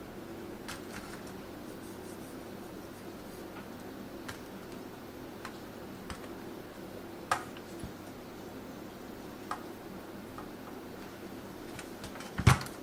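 Scattered light clicks and taps, with two louder knocks, one about seven seconds in and one near the end, over a steady low hum.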